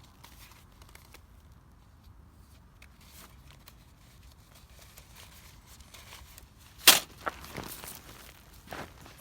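Dry wood snapping and crackling: faint scattered ticks, then one sharp loud snap about seven seconds in, followed by a few smaller crackles and another snap near the end.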